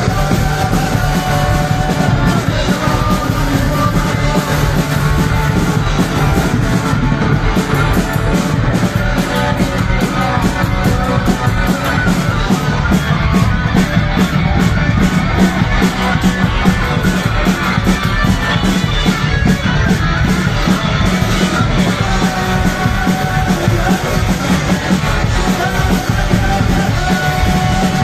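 Live punk-rock band playing loud: electric guitars, bass and drums, with shouted and sung vocals at the microphones. Fast, regular cymbal strokes drive the middle of the passage.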